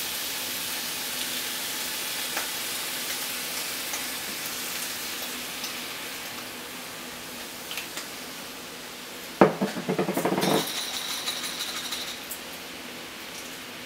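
Thin-sliced beef sizzling in a frying pan as soy sauce and Worcestershire sauce are poured over it, a steady hiss. About nine seconds in there is a sharp metal clank, then about a second of clattering against the pan.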